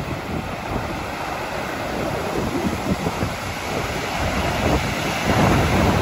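Sea waves breaking and washing up a sandy beach, a steady rushing surf that swells louder near the end, with wind buffeting the microphone.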